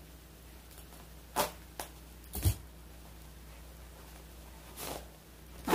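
A sewn-shut plastic package being cut open with scissors and pulled apart by hand: a handful of short, sharp crackles, one with a soft thump about two and a half seconds in, the loudest at the very end.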